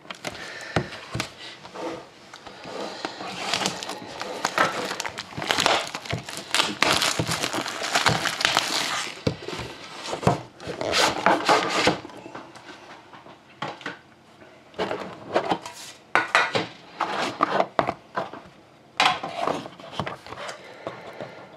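Hands handling a trading card box and its packaging: cardboard and plastic rustling and crinkling, with many small clicks and knocks as the box is opened and the inner box is taken out and set down. The handling is busiest in the first half and turns sparser toward the end.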